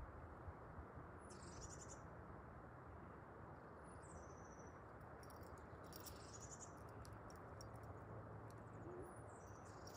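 Near silence outdoors: a faint bird singing short high phrases a couple of seconds apart over steady low background noise.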